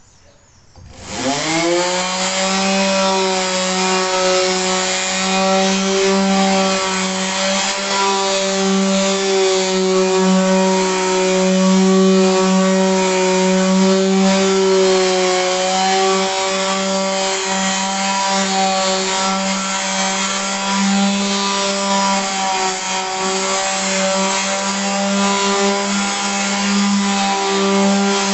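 Electric sander starting up about a second in, its motor quickly rising to speed and then running steadily, sanding old varnish off wood.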